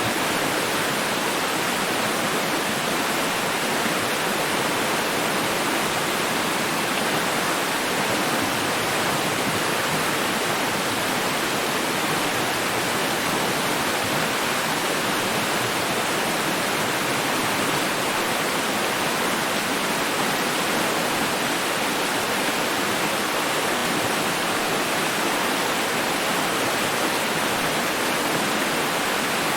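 Running water rushing steadily in an even hiss that never changes.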